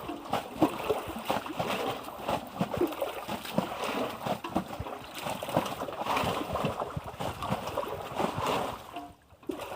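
Water splashing and lapping with many small irregular knocks and splashes, of the kind heard around a small boat on the water. The sound drops out briefly near the end.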